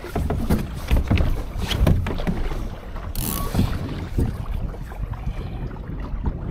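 Laser dinghy sailing: water slapping and splashing against the hull in irregular bursts over a low rumble of wind buffeting the microphone, with a brief hiss of spray about three seconds in.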